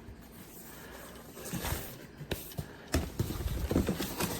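Handling noises while a boxed portable air conditioner is unpacked: scattered light knocks and thumps, with a few sharp clicks in the second half.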